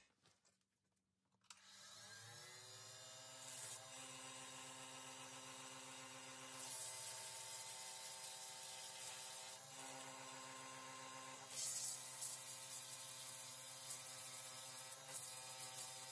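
Wood lathe motor spinning up about a second and a half in and then running with a steady whine, while sandpaper rubs against the spinning Jatoba wood vase in several hissing stretches.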